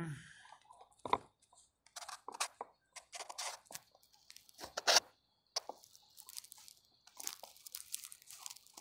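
Irregular crunching and crinkling noises, a scatter of short sharp crackles, the loudest about a second in and again about five seconds in.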